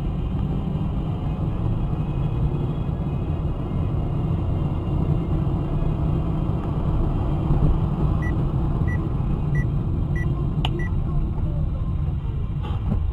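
Steady low road and engine rumble of a moving car, heard from inside the cabin. A little past halfway, five short high beeps sound about two-thirds of a second apart, with a sharp click near the last one.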